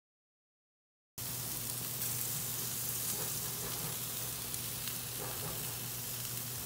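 Chicken pieces and a tikki patty sizzling steadily on a barbecue grill. The sizzle starts abruptly about a second in.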